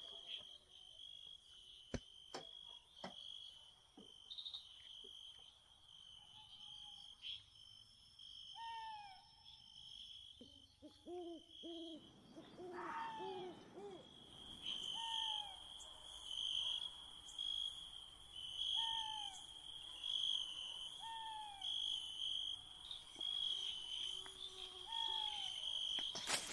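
Night forest ambience: crickets trilling steadily, with an owl hooting over them. The hoots start about a third of the way in and come roughly once a second, with a few deeper calls around the middle. A few sharp clicks come near the start.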